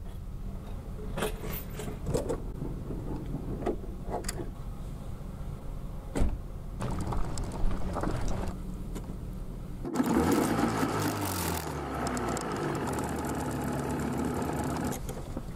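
An engine running steadily, with scattered sharp knocks and clunks over it. About ten seconds in, a louder, rougher engine sound with a shifting pitch starts, and it stops about five seconds later.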